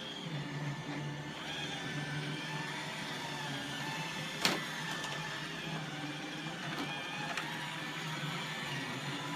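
iRobot Roomba 880 robot vacuum running on carpet, its motor and brushes giving a steady, slightly pulsing hum. A single sharp click or knock sounds about halfway through, with two fainter clicks a little later.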